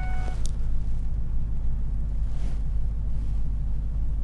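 The supercharged 5.4-litre V8 of a 2002 Ford F-150 SVT Lightning idling steadily just after a cold-free, easy start, heard from inside the cab. A steady electronic tone cuts off just after the start.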